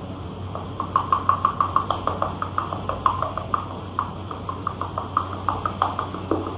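Rapid, even clicking or knocking, about six a second, starting about a second in, heard through a video call over a steady low hum.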